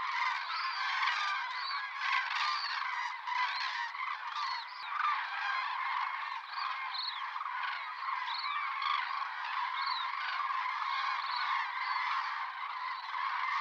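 A flock of common cranes (Grus grus) calling in flight: many trumpeting calls overlap in a continuous chorus.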